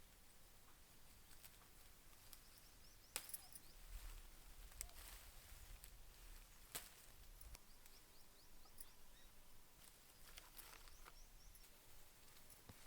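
Near silence, broken by a few faint, sharp taps or knocks spread through it.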